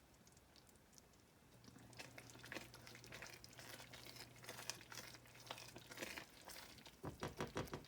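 Melted butter and brown sugar coming to a boil in a saucepan: faint, irregular bubbling and popping that starts about a second and a half in. A low steady hum runs under it until near the end.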